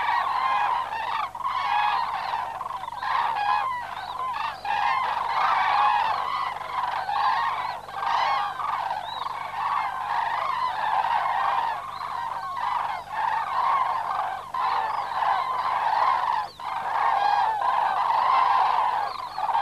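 A flock of common cranes calling in flight: many overlapping trumpeting calls at once, with no pause.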